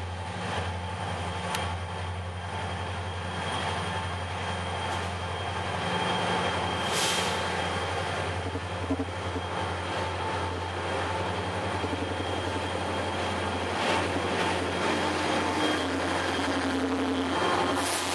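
Diesel freight locomotives running with a steady low engine drone, growing louder as they approach and pass close by.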